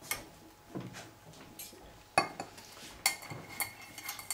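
Metal cup and mesh strainer clinking against the rim of a steel saucepan: a few sharp metallic clinks in the second half, one ringing briefly.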